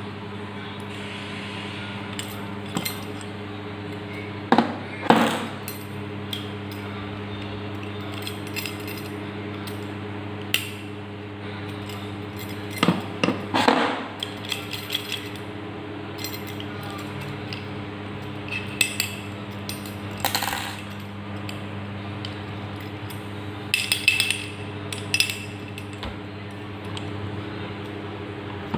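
Small metal distributor parts clinking and tapping as they are handled and set down, in a few scattered clusters, over a steady low hum.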